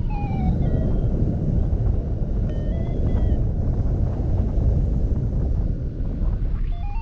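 Wind rushing hard over the microphone in flight. A faint electronic tone steps up and back down in pitch about two and a half seconds in.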